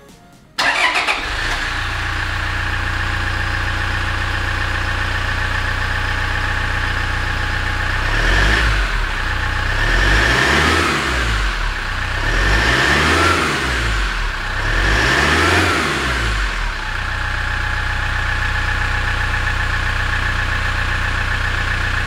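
Toyota HiAce's 2.8-litre 1GD four-cylinder turbo-diesel, heard from outside in front of the van, starting about half a second in and settling to an idle. It is blipped four times between about 8 and 17 seconds in, each rev rising and falling, then it idles steadily again.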